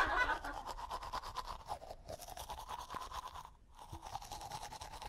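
Manual toothbrush scrubbing teeth in quick back-and-forth strokes, with a short pause about three and a half seconds in.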